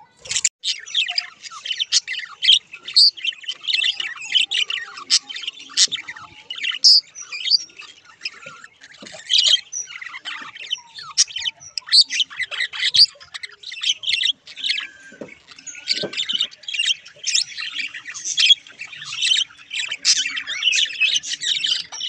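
A group of budgerigars chattering and warbling: a dense, unbroken stream of quick high chirps and squawks.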